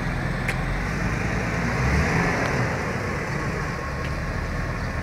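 A large SUV's engine running close by, a steady low sound with a few faint clicks over it.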